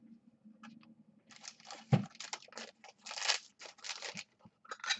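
Crinkling and rustling of plastic card packaging being handled in a string of bursts, with one sharp thump about two seconds in.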